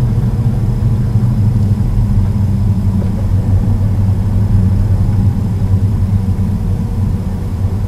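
Car driving along a narrow paved road, heard from inside the cabin: a steady low rumble of engine and tyres that stays even throughout.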